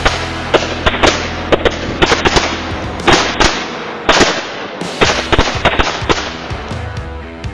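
A big bundle of firecrackers going off in a rapid, irregular run of sharp bangs, thinning out and getting quieter toward the end.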